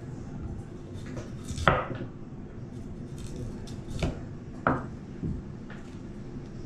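Kitchen knife knocking against a cutting board as cassava root is cut and peeled: a few sharp knocks, the loudest about a second and a half in, with two more about four and four and a half seconds in.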